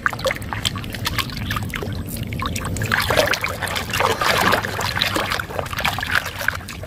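Muddy water sloshing and splashing in a plastic basin as a hand scrubs a plastic toy animal under the surface, getting busier and louder from about three seconds in.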